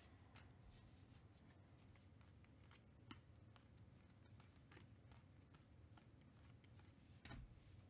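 Near silence, with faint clicks and rustles of Panini Mosaic football trading cards being slid and flipped through by hand; a slightly louder click about three seconds in and a soft knock near the end.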